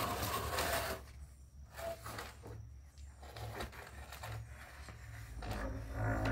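Wooden 2x4 stud wall frame scraping, creaking and bumping on a concrete slab as it is tipped up from flat to standing, with a dense stretch of scraping in the first second and more near the end.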